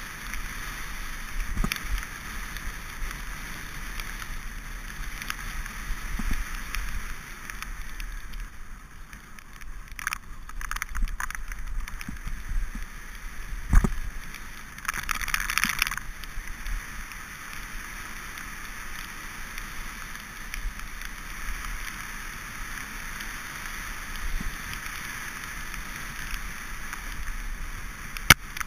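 Mountain bike riding over a wet, muddy dirt track: a steady hiss of tyres through mud and water with wind on the microphone, and scattered knocks from bumps, the loudest about fourteen seconds in.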